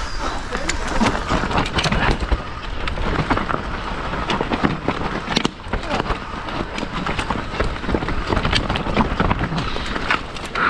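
Mountain bike riding down a rough dirt trail: steady wind and tyre noise on the microphone, broken by frequent sharp clacks and rattles.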